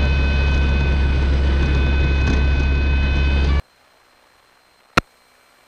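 Cessna 150's four-cylinder Continental O-200 engine and propeller droning steadily in the cabin at reduced power, about 1800 RPM. The drone cuts off abruptly a little past halfway, leaving a faint hiss with a single click near the end.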